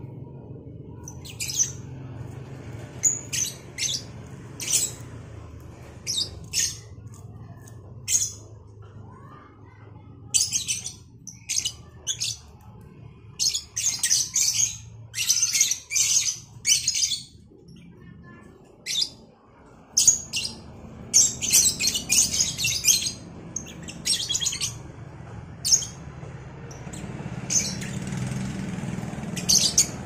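Two caged lovebirds, a cobalt and a Batman colour variety, calling back and forth with shrill, short chirps. The chirps come in clusters with quiet gaps between, busiest through the middle and again in the second half.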